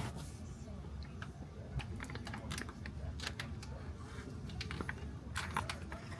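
Irregular light clicks and taps of small parts being handled, over a low steady rumble, with a quick cluster of clicks about five and a half seconds in.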